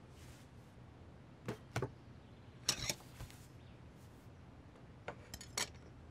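Dishes being set down on a dining table: a handful of short clinks and knocks, with a small cluster near the end.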